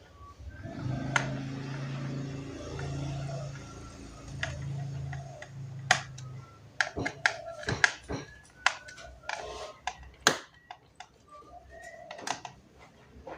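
A low steady hum in four short runs during the first half, then a string of small sharp clicks and taps: laptop parts and screws being handled while a laptop is taken apart.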